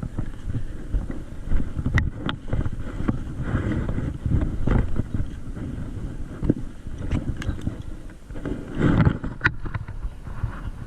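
Wind buffeting the microphone on an open boat, a gusty low rumble, with a few sharp knocks about two seconds in and near the end.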